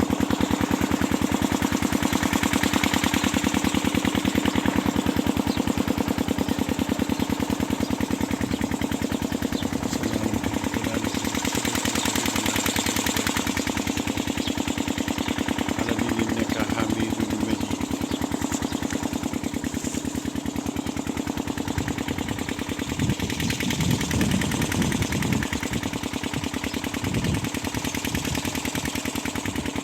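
Engine of an irrigation water pump running steadily, with rapid, even firing beats. Some extra irregular low thumps join in about two-thirds of the way through.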